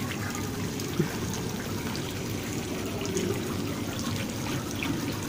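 Water trickling and running steadily in an open koi pool.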